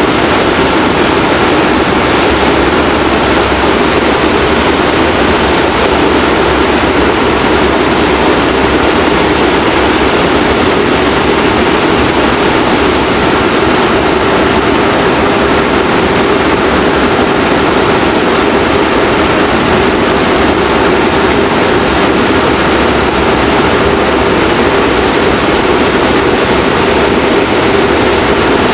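Loud, steady rush of wind and engine drone inside an aircraft in cruise flight with its rear ramp door open, a constant hum running under the wind noise.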